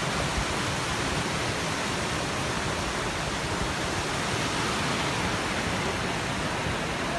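Waterfall crashing down: a steady, even rush of falling water.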